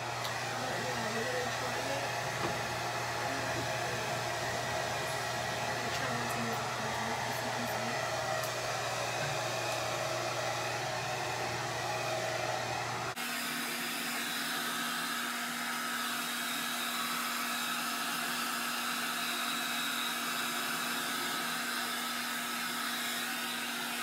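Hand-held hair dryer running steadily, blowing air. About halfway through, its hum shifts suddenly to a higher pitch.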